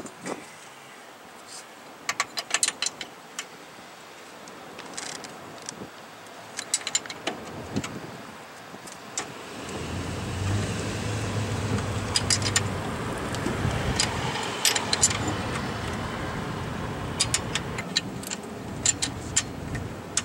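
Hand tools clicking and clinking on metal in short scattered bursts as the wiring and bolts of the old starter on a slant-six engine are worked loose. From about halfway through, another vehicle's engine runs with a steady low hum.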